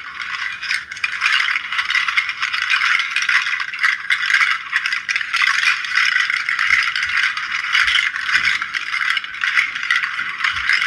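A big seed pod rattle, a string of large hard seed pods, shaken by hand so the pods clatter against each other in a dense, continuous rattle. It is likened to waves dragging little rocks and shells.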